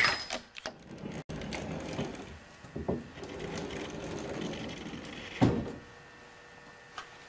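Knocks and handling noises: a sharp click at the start, then a low rumble of movement with a single thump about five and a half seconds in, and a faint steady hum after it.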